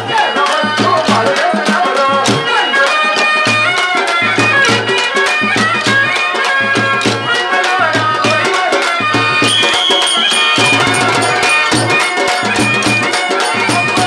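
Live Indian folk band music: a harmonium melody over a steady beat from hand drums and a barrel drum, with a brief high steady tone about two-thirds of the way through.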